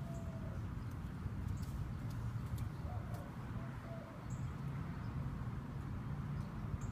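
Steady low outdoor rumble with a bird's faint, short cooing notes near the start and again about three seconds in, plus a few faint ticks.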